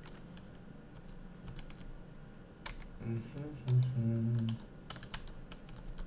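Computer keyboard keys and mouse buttons clicking irregularly during 3D modelling work. A brief low murmured voice sounds a little past the middle.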